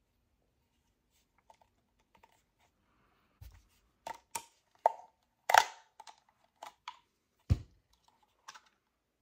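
Plastic pump housing of an all-in-one PC water cooler being pried apart with a small screwdriver: a string of sharp plastic clicks and snaps as its clips give, loudest about five and a half seconds in, then a single dull knock about seven and a half seconds in.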